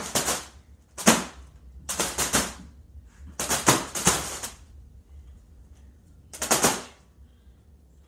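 Green star-shaped foil balloon caught in a spinning ceiling fan, slapped by the blades in rapid rattling bursts, about five of them, each under a second, over the fan's low steady hum.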